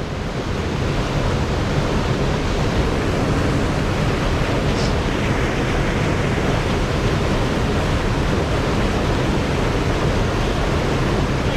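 Steady rush of water pouring over a weir spillway.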